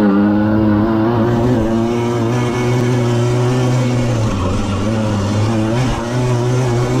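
Small two-stroke moped engine running hard at high revs, heard from on board the moped. The revs hold steady, ease off about four seconds in, then rise and fall near the end.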